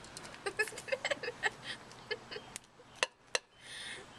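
Kitchen utensils and a measuring cup clinking and knocking against a bowl while flour is handled: a cluster of light clinks, then a few sharper taps and a brief hiss near the end.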